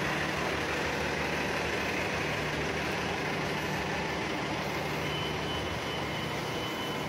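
Steady drone of a city bus engine running, a constant low hum over street noise. A thin high whine joins about five seconds in.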